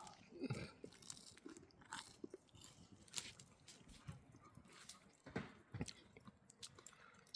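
A person biting and chewing a campfire pie-iron toasted sandwich with a crisp, partly burnt crust: faint, scattered crunches.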